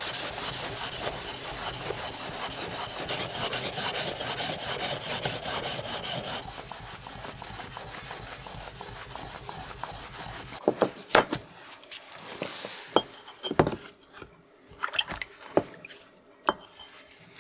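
Steel plane iron honed on a wet whetstone: fast back-and-forth scraping strokes, loud at first and then softer. About two-thirds through, the scraping stops and gives way to scattered clicks and knocks as the stone and its wooden holder are handled.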